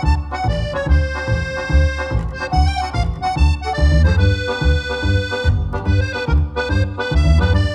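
Background music: held melody notes over a steady bass beat, about two beats a second.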